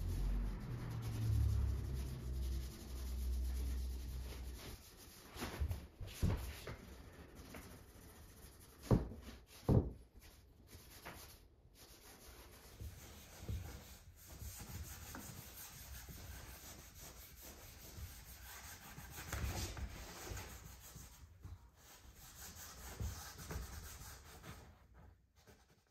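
A cloth rubbing by hand along the wooden rails and backrest of a bent-log lounge chair, working in finish from a tin. There are two light knocks about nine and ten seconds in.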